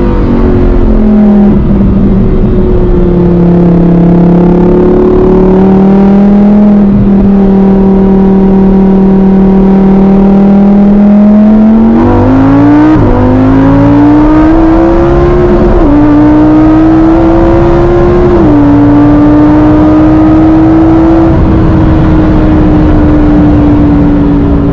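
Lamborghini engine running loud at mostly steady revs. Its pitch dips early, holds, then climbs in several quick steps about halfway through before settling.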